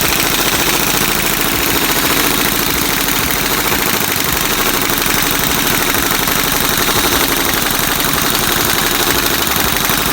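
Impact wrench hammering continuously in a rapid, steady rattle while it loosens the alternator pulley on a Mitsubishi Montero 4N15 engine.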